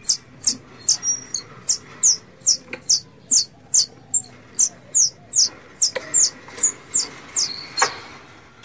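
Plantain squirrel (bajing kelapa) in heat giving its mating call: a fast, even series of short, high chirps that fall in pitch, about two and a half a second, stopping shortly before the end. A few sharp knocks come between the chirps.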